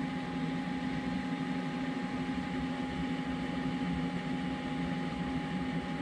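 Small electric cooling fan running with a steady hum and a thin constant whine above it.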